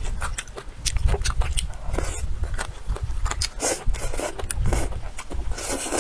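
Close-miked eating sounds from a person eating braised chicken and vegetables with chopsticks: irregular wet clicks of chewing and mouth noises, with several short slurping, sucking bursts as food is drawn into the mouth.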